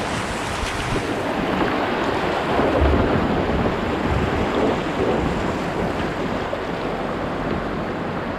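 Whitewater river rapids rushing steadily, with wind buffeting the microphone.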